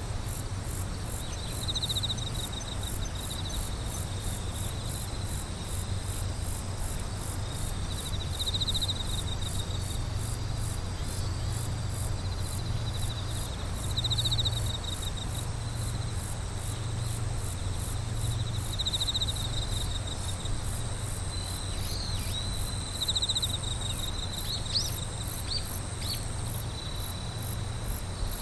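Night chorus of crickets and other insects: a steady, fast-pulsing high trill, joined about every five seconds by a louder chirping trill, over a low steady hum.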